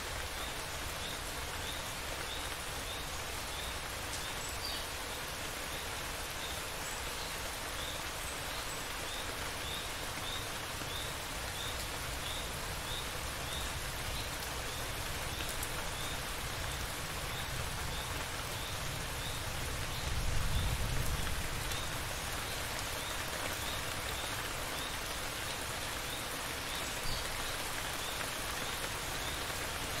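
Steady rain falling, with a low rumble of distant thunder swelling briefly about two-thirds of the way through. A faint high chirp repeats about twice a second behind the rain.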